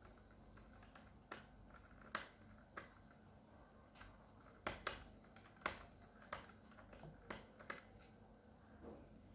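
Faint, irregular light clicks and taps of a small screwdriver and screws being worked out of a laptop's bottom cover, about a dozen in all.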